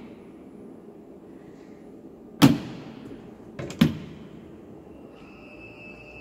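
Sharp metallic clanks from the Ghiringhelli M200 CNC centerless grinder's automatic part-handling mechanism: one about two and a half seconds in, then a quick double clank a second later, each ringing briefly. A steady high-pitched whine from the machine starts near the end.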